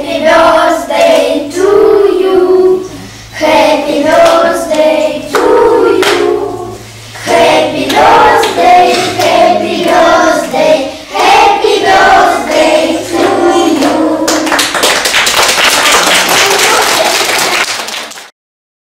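A group of children singing a song together, with held notes, for about fourteen seconds. Then clapping starts and goes on until the sound cuts off abruptly.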